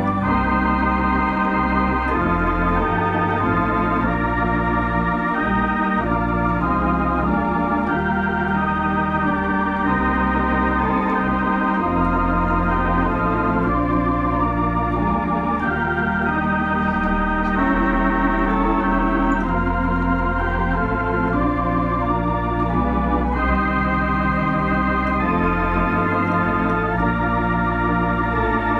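Compton cinema organ playing a carol: held chords changing every second or two over deep sustained bass notes.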